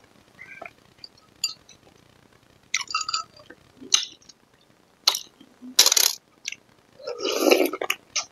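A metal spoon clinking against a small glass bowl several times as lod, a green rice-noodle dessert, is scooped up and eaten. There are two longer, noisier bursts of eating sounds, one about six seconds in and one near the end.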